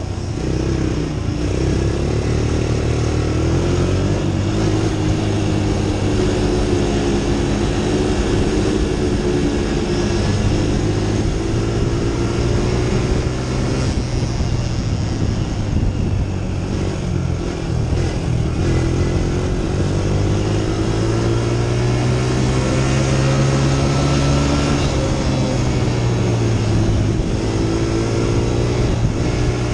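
Onboard sound of a small racing engine running hard through a lap of a dirt track, its pitch rising and falling again and again as the throttle opens on the straights and eases for the turns, with wind rushing over the microphone.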